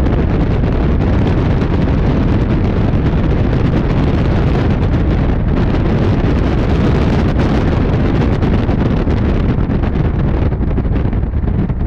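Loud wind buffeting the microphone: a steady, heavy rush with no clear engine tone, easing briefly near the end.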